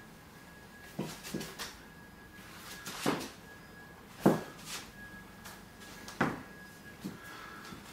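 Sharp clacks and knocks from an air rifle being fired and handled in a small room, about eight in all, the loudest about four and six seconds in. A faint steady high whine runs underneath.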